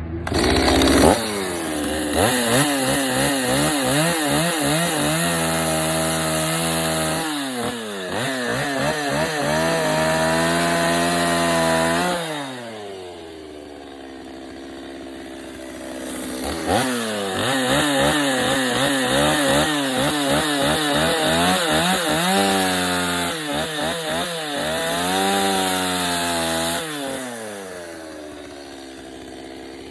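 Chainsaw carving into wood in two long spells, its engine pitch rising and falling as the chain bites and is eased off. Between the spells and near the end it drops back to idle.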